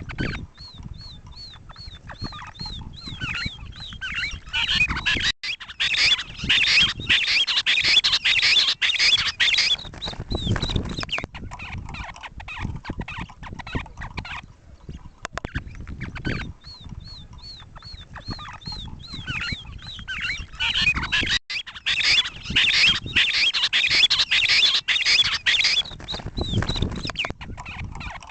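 Recorded lavuka bird call playing twice over. Each round opens with a run of short, even, high notes, about four a second, and builds into several seconds of loud, rapid, overlapping calling.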